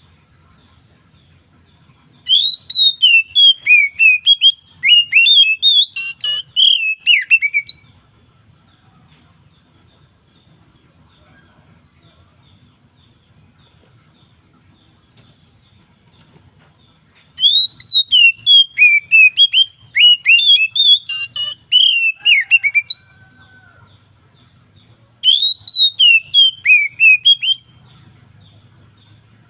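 Oriental magpie-robin (kacer) singing loud, clear whistled song phrases of quick gliding notes in three bouts: one about two seconds in, a longer one from about seventeen seconds, and a short one near the end, with quiet pauses between.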